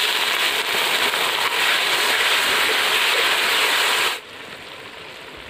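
Water poured into a hot kadai of frying onion, egg and spice masala, sizzling in a loud, steady hiss. The sizzle cuts off abruptly about four seconds in, leaving a much fainter hiss.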